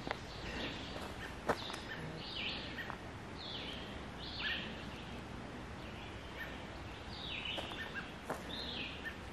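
Woodland birds calling: short, downward-sliding chirps repeat about once a second over a faint steady background hiss. A few sharp clicks stand out, the loudest about a second and a half in.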